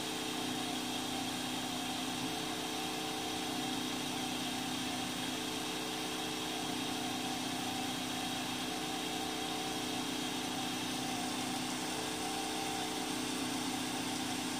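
3D printer extruder stepper motor running at a constant slow rate, feeding filament through the hot end: a steady mechanical hum made of several even, unchanging tones.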